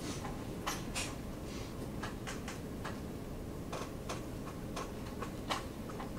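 Scattered light clicks and taps at an uneven pace over a steady low classroom room hum.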